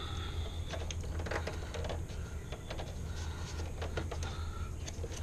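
Insulated wires being handled and bent into place inside a metal breaker panel: scattered small clicks and taps of the wires against the box, over a steady low hum.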